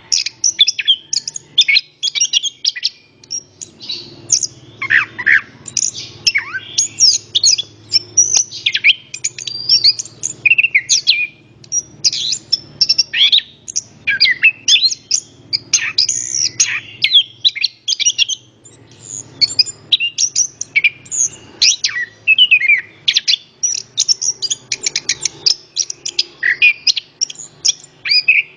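Orange-headed thrush (anis kembang) singing a long, continuous song of rapid, varied high phrases with only brief pauses.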